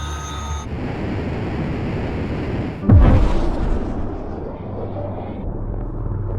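Film sound of the Darkstar hypersonic jet's rushing roar, then a sudden loud boom about three seconds in that rumbles away as the scramjet kicks in.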